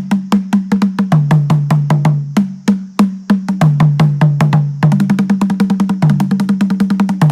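Namunjjoloba drums from Buganda played in a fast, steady rhythm, the strokes moving between a lower and a higher drum pitch. About five seconds in, the strokes become denser.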